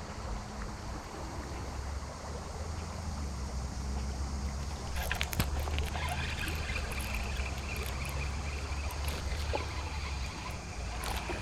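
Flowing river water over a steady low rumble of wind on the microphone. About five seconds in, light clicks start, and a high, even whirring runs for several seconds.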